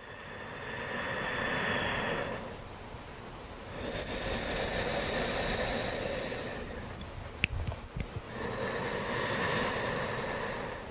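Slow, deep breathing by a person in a guided yoga breathing exercise: three long, audible breaths, each two to three seconds, with short pauses between them.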